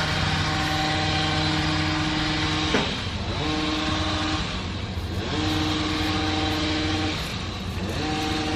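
An engine running at a steady pitch, its tone fading out briefly three times.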